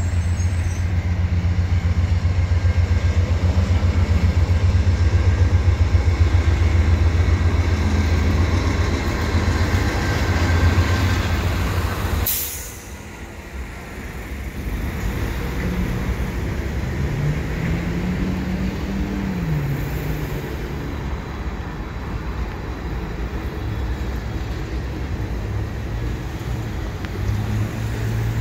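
Street traffic and a CN freight train crossing a bridge overhead. A loud, steady low rumble lasts about twelve seconds and ends with a sharp crack. After that comes a quieter mix of passing vehicles and the rolling train, with one engine's pitch rising and then falling.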